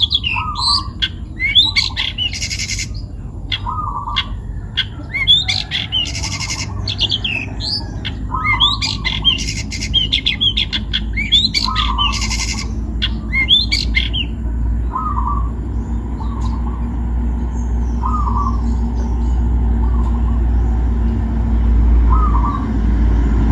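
Long-tailed shrike (cendet) calling: harsh, rasping squawks mixed with quick chirps for the first half or so. It then falls to short, lower calls every second or two while a low rumble rises underneath.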